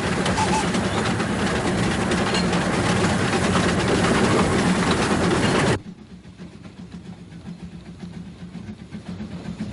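Narrow-gauge steam locomotive running along the line, heard loud and close from on the engine. About six seconds in, the sound drops sharply to a much quieter, more distant train sound.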